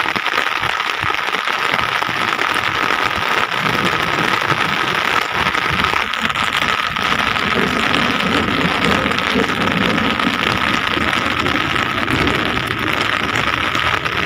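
A steady outdoor hiss, even throughout, with a faint steady high tone and a little more low rumble in the second half.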